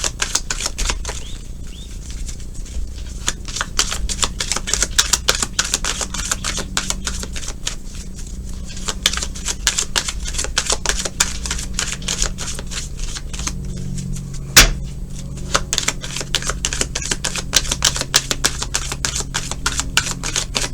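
A deck of tarot cards being shuffled by hand: a long run of rapid, dense card clicks with a sharp tap about two-thirds of the way through, over a faint steady low hum.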